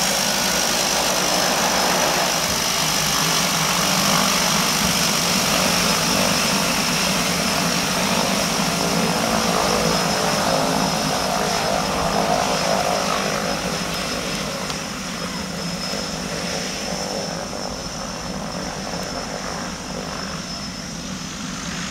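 Two turboprop engines and propellers of a de Havilland Canada DHC-6 Twin Otter floatplane running as it taxis on the water, with a steady high turbine whine. The sound grows gradually fainter from about halfway as the plane moves away.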